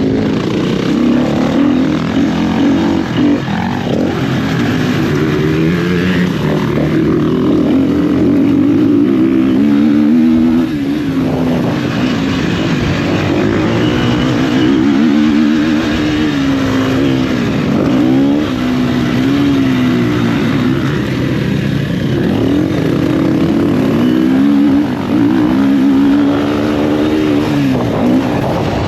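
Motocross bike engine revving hard under load, its pitch rising and falling again and again with throttle, gear changes and corners as it is ridden around a dirt track.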